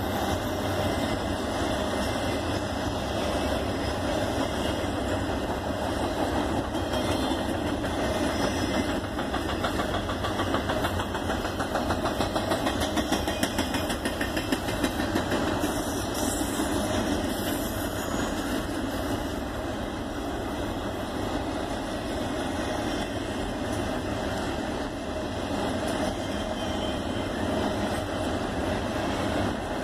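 Norfolk Southern double-stack intermodal freight train rolling past: a steady rumble of wheels on rail from the container cars.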